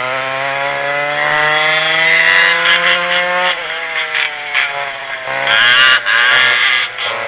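Twin McCulloch two-stroke kart engines at full throttle, the pitch climbing steadily for about three and a half seconds, then falling as the throttle is lifted. After that the revs run unevenly through the corner, with a brief louder burst near six seconds.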